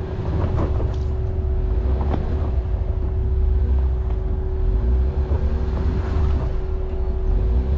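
Ford Bronco Sport crawling up a steep, rutted dirt trail: its engine and drivetrain running under load, with a steady hum and wind rumbling on the body-mounted camera's microphone. A few faint knocks come from the tyres over ruts and stones in the first two seconds.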